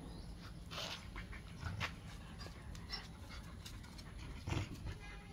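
Dogs panting, with a few short breathy huffs.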